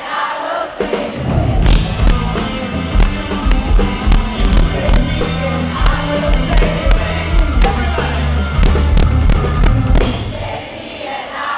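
Live rock band playing with singing, heavy in the bass with sharp repeated hits.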